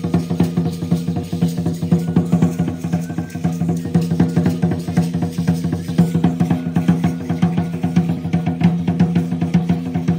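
Traditional Aztec-Chichimeca dance drumming: a large upright huehuetl drum beaten in a fast, steady, unbroken rhythm, its deep ring sustained under the strokes, with the rattle of the dancers' ankle rattles mixed in.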